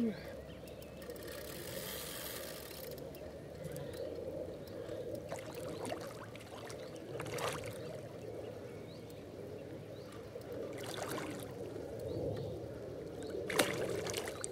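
A hooked fish swirling and splashing at the water's surface while being played in, with a few short splashes about seven and a half, eleven and thirteen and a half seconds in.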